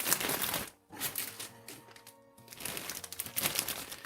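Plastic bags of model-kit runners crinkling as they are handled, with two brief pauses, over quiet background music.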